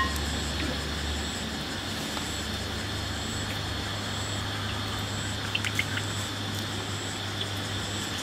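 Night-time outdoor ambience: an insect calling in short, high, repeated pulses about once a second over a steady low hum, with a few faint clicks a little past the middle.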